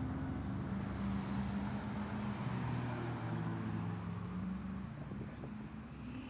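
Car engines running at low speed as cars roll slowly past, a steady low engine note that shifts in pitch and fades a little toward the end.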